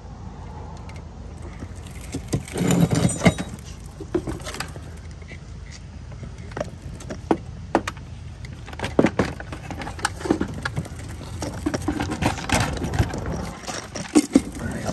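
Irregular knocks, clicks and scrapes of a large air filter and its plastic housing being pushed up and test-fitted against the underside of a truck, with a louder run of knocks about three seconds in. A steady low rumble lies underneath.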